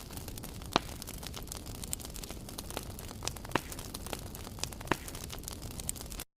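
Fire crackling: a steady hiss with scattered sharp pops, a few of them louder. It cuts off suddenly near the end.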